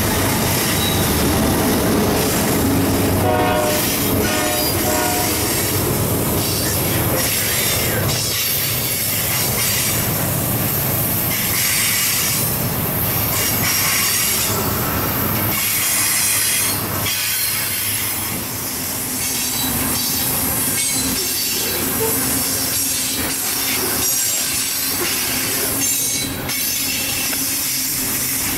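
A freight train of loaded tank cars rolling past close by, steel wheels clattering and squealing on the rails. In the first few seconds the diesel engines of the trailing Canadian Pacific GE locomotives are heard as they go by.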